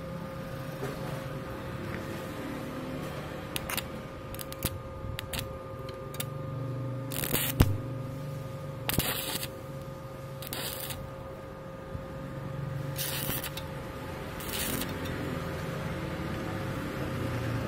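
Stick arc welding a wide gap in steel bar: the arc crackles in short bursts of about half a second, struck and broken again and again to build the bead across the gap. A few sharp clicks come before the first burst, and a steady hum runs underneath.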